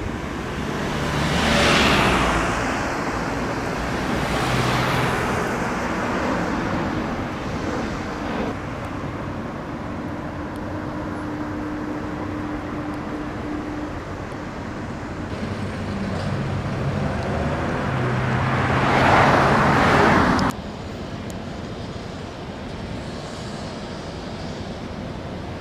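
Road traffic: several cars passing one after another, each swelling and fading, with a steady engine hum between them. The loudest pass, about twenty seconds in, cuts off abruptly, leaving a quieter, even traffic hum.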